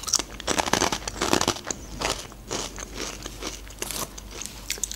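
Close-miked crunching of Khrustim squid-flavoured rye croutons being chewed, a run of irregular crisp crunches.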